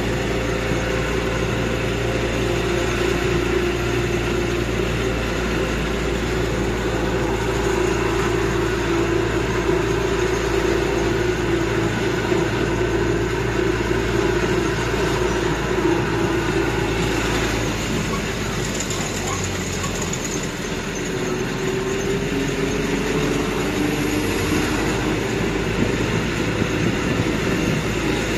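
Tourist land train, a road vehicle pulling open carriages, running along the road, heard from on board. Its engine note and running noise are steady, and the engine note shifts about three-quarters of the way through.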